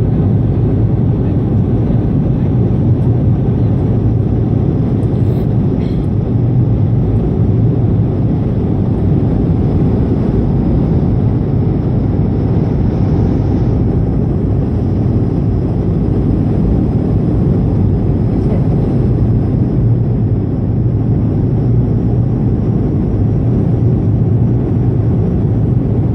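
Steady in-flight cabin noise of an Airbus A220-300: an even, low rumble of airflow over the fuselage and its Pratt & Whitney PW1500G geared turbofan engines.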